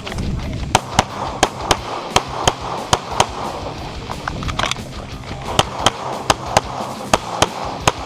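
Pistol shots fired in fast strings, with a pause of about two seconds midway before more quick shots.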